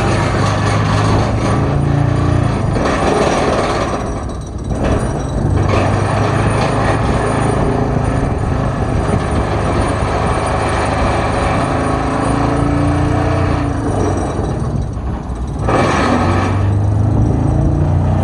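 Sheet pile driver working: a loud, steady machine and engine noise with a low hum, which eases briefly about four seconds in and again around fifteen seconds before picking back up.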